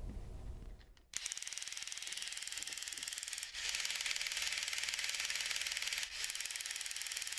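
Small electric motor of a 1980s Radio Shack remote-control tank running its plastic gear train: a fast, even rattling whir of gear teeth that starts suddenly about a second in and gets louder a few seconds later, with two brief dropouts.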